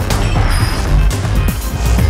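Background music with a heavy bass and percussive hits.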